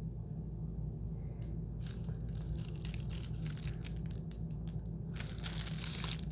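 Packaging wrapper being crinkled and torn open: a run of short crackles from about a second and a half in, then a longer, louder tear around five seconds in, over a steady low hum.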